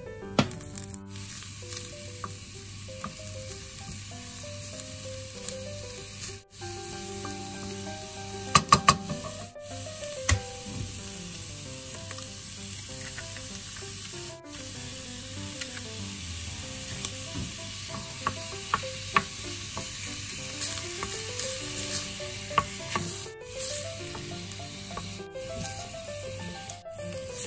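Cauliflower rice and butter sizzling steadily in a stainless steel saucepan while a wooden spoon stirs and scrapes through it, with a few sharp knocks of the spoon against the pan about a third of the way in.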